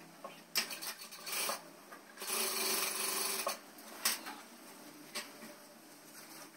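Industrial single-needle sewing machine stitching denim in short runs, with one longer run of about a second and a half near the middle.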